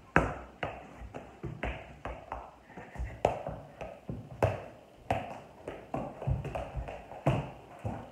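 Soccer ball being juggled: a run of sharp taps as the ball is kicked up again and again, about two touches a second at an uneven pace.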